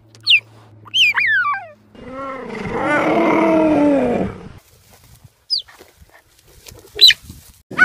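A big cat roaring once, long and loud, for about two and a half seconds, as a wild-animal sound effect. Before it come two short, high, falling calls, and a few brief high calls follow near the end.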